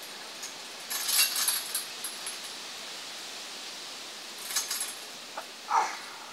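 Gymnastic rings and their metal hanging hardware clinking and jingling as a man swings upside down from them, in two short bursts about a second in and about four and a half seconds in, over a steady hiss. A brief higher-pitched sound follows near the end.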